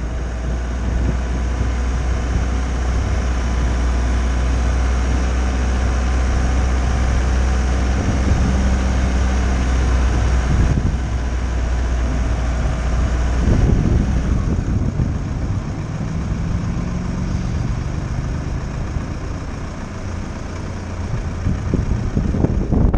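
VW T6 camper van's engine running as the van rolls down a steep descent, with wind rumbling on the microphone.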